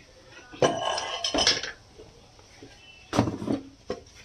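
Kitchen utensils clinking and clattering in two bursts, about a second in and again around three seconds, as a metal spoon and plastic spice containers are handled, with a single click near the end.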